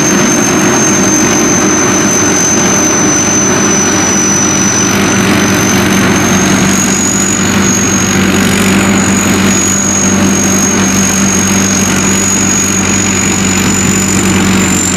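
SAKPATTANA SS-200 mini combine harvester running steadily: a constant engine hum with a thin high whine that drifts slowly upward.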